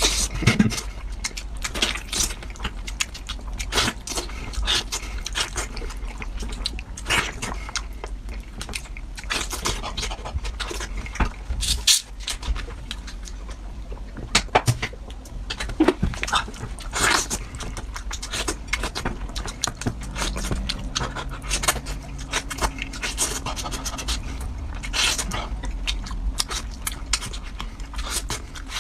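A person eating braised pork knuckle close to the microphone: wet chewing and lip-smacking, with many short, irregular smacks and clicks throughout.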